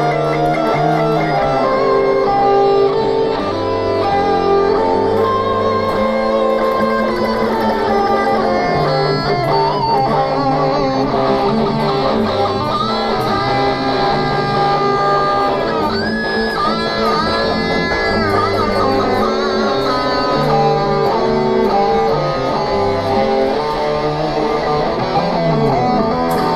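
Electric guitar and bass guitar parts recorded direct into a computer, playing together: a bass line under a rhythm guitar part and a lead guitar solo, with sustained bent notes about two thirds of the way through.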